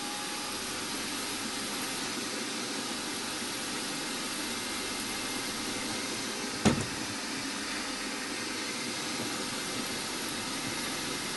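Milling machine spindle running steadily while a center drill spots a hole in a metal block held in a vise. A single sharp knock comes a little past halfway.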